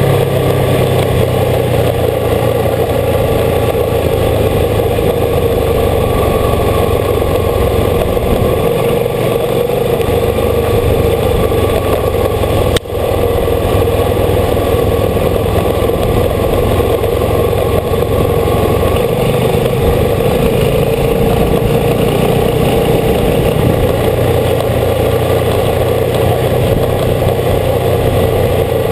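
Old motorcycle's engine running at road speed under the rider, mixed with constant wind rush on the camera. The low engine note shifts a few times, and there is one brief click about halfway through.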